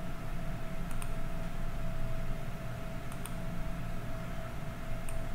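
Three faint computer mouse clicks, about a second in, about three seconds in and near the end, over a steady background hum with a thin steady tone.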